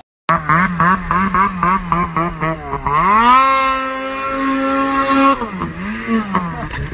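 Snowmobile engine running with its pitch wavering quickly up and down, then revving up about three seconds in and held high at full throttle for about two seconds before dropping back and wavering again.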